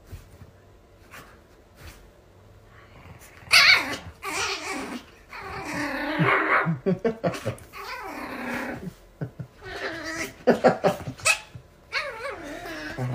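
Small puppy growling and yapping in play, in repeated bursts starting about three and a half seconds in.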